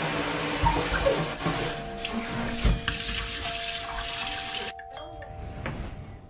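Water running from a newly installed Moen kitchen faucet into a stainless steel sink: first spraying from the pull-out sprayer, then pouring from the spout over hands, with a couple of dull knocks. The flow stops sharply about five seconds in.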